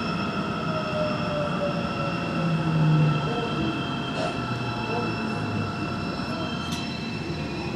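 Daegu Metro Line 2 subway train running through a tunnel: a steady rumble of wheels on rail with several thin, steady high-pitched tones held over it.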